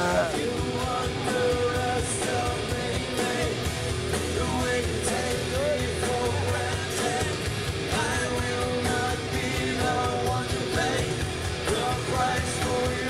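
Rock band playing live: electric guitar, bass guitar and drums, with a singer's voice in the mix.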